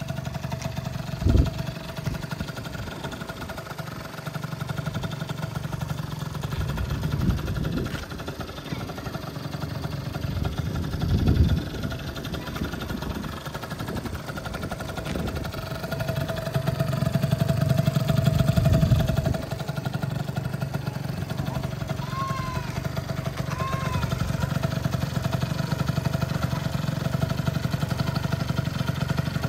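Yamaha Super Jog ZR scooter's two-stroke engine, bored up to 70cc, idling, with short throttle blips about a second in, at about seven seconds and at about eleven seconds, and a longer rev held for a few seconds in the middle.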